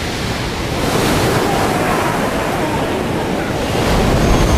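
A huge burst of water, hitting suddenly and then going on as a long, loud rush of churning water and falling spray, with a deep rumble swelling near the end.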